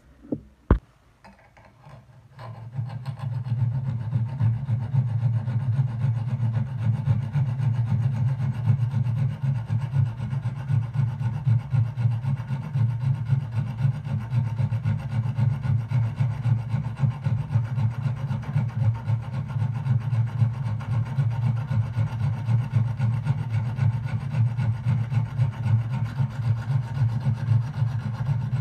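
A steel knife blade is rubbed by hand against an abrasive stone or sandpaper. After a short click under a second in, the continuous scraping starts about two seconds in.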